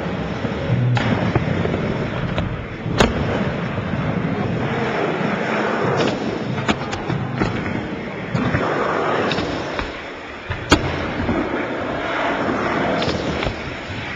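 Skateboard wheels rolling over the ramps of a skatepark, a continuous rumble. Sharp clacks of the board hitting the surface come about three seconds in, around six seconds, and loudest near eleven seconds.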